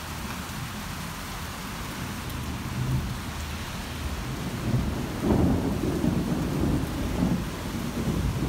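Rolling thunder rumbling over steady rain; the rumble swells and grows louder about halfway through.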